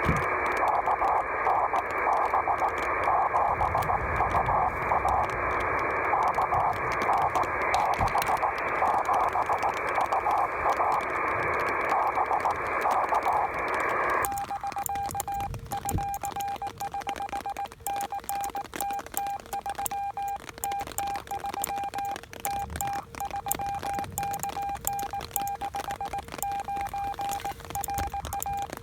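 6 cm amateur radio receiver: loud hiss through the receiver's voice-width passband, which drops abruptly about halfway through when a steady tone comes in, keyed on and off like Morse code, the kind of CW signal sought in a rain-scatter contact.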